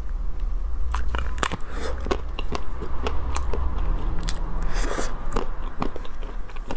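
Close-up biting and chewing through the crisp chocolate shell of a Magnum ice cream tub: a run of irregular sharp crackles and crunches.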